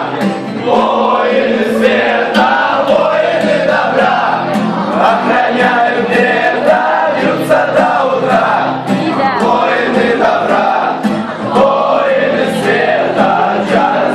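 A group of young men singing together, accompanied by a strummed acoustic guitar.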